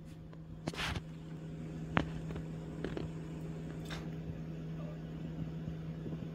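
A steady low hum in the room, with a few light taps and clicks scattered through it, the sharpest about two seconds in.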